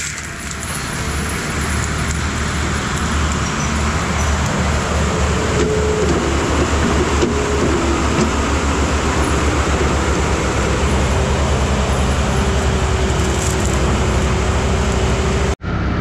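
ASV RT-135 tracked skid steer with a forestry mulcher head, its engine running steadily and its tracks travelling as it drives up the mulched trail. It grows louder over the first few seconds as it closes in. The sound breaks off for an instant near the end.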